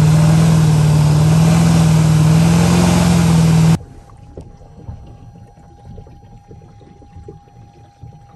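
Pickup truck engine running hard under load, with water spraying and churning as the truck drives through deep water. Almost four seconds in it stops abruptly, leaving a much quieter stretch with a faint steady high tone and small splashes.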